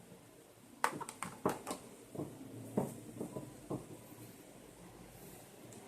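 Light clicks and taps of tablets being handled: about a dozen short knocks between one and four seconds in, then quiet handling.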